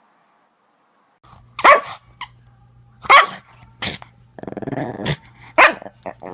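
A dog barking sharply about four times, starting a little over a second in, with a rattly growl between the barks.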